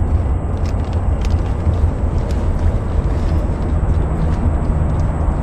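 Boat engine running steadily under way, a constant low hum with rushing noise over it.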